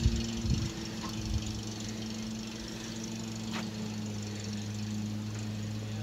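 Truck engine running at low revs as the truck, loaded with cut tree branches, pulls slowly away, a steady low hum. A few low knocks and rumbles come in the first second and a half.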